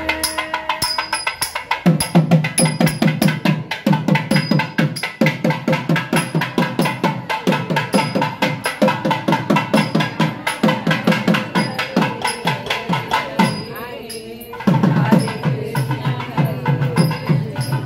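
Procession band music: a wind instrument plays a melody over a steady hand-drum beat of about two strokes a second. The drumming drops out for about a second near three-quarters of the way through, then comes back loud.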